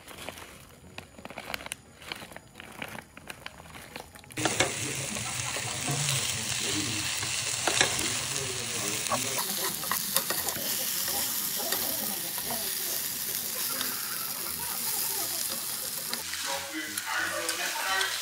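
Food sizzling in a hot pan, starting suddenly about four seconds in and going on steadily. Before it come a few faint clicks and knocks.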